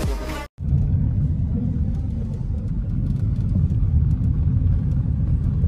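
Electronic dance music cuts off about half a second in, then the steady low rumble of a car being driven on the road, engine and tyre noise heard from inside the cabin.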